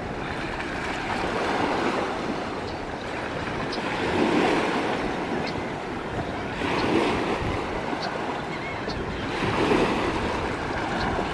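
Bay waves washing in, the surf swelling and ebbing about every three seconds, with wind buffeting the microphone.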